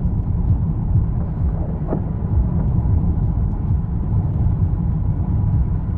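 Steady low rumble with no distinct events, with a faint short rising sound about two seconds in.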